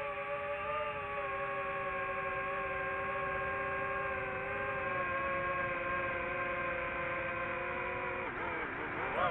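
Quadcopter drone's propellers whining steadily, a chord of several close tones. Near the end the pitch dips and then swings sharply up.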